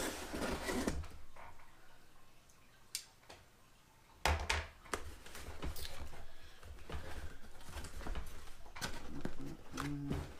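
Cardboard shipping box being opened by hand: packing tape scraped and torn along the top seam, with a loud tear about four seconds in, then the flaps pulled open with rustling cardboard.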